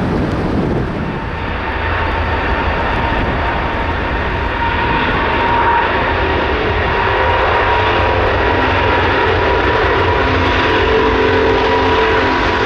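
Airbus A350's Rolls-Royce Trent XWB jet engines running at low power with a steady whine of several tones over a low rumble as the airliner rolls slowly onto the runway. The whine grows a little stronger about five seconds in. At the very start, the rumble of a climbing jet breaks off.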